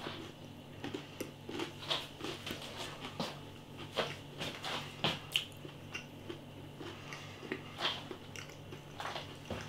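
A person chewing a mouthful of steak pie whose pastry is crispy and dry from the oven, with small crunches and mouth clicks scattered throughout. A faint steady hum runs beneath.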